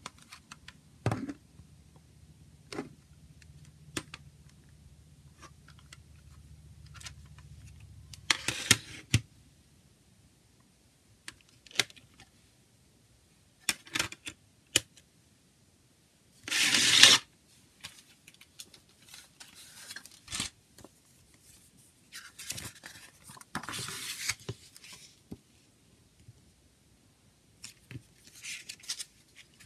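Plastic CD jewel case and its paper booklet being handled: scattered clicks and taps of the case, a loud scraping rustle about halfway through, then paper rustling as the booklet is opened and its pages turned.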